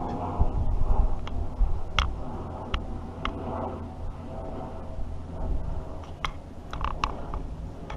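Wind buffeting the microphone in an uneven low rumble, with a scattering of short sharp ticks, several of them close together near the end.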